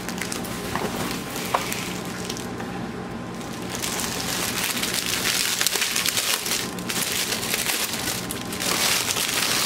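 Crinkling and rustling of the plastic film over a large diamond-painting canvas and its paper as it is handled and flipped over, with a few sharp clicks; the rustling grows louder and denser about four seconds in.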